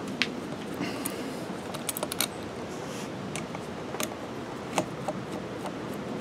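Screwdriver turning the carburetor mounting bolts on an Echo CS-345 two-stroke chainsaw: scattered small metallic clicks and taps as the tool seats and turns in the bolt heads, with a quick cluster of them about two seconds in.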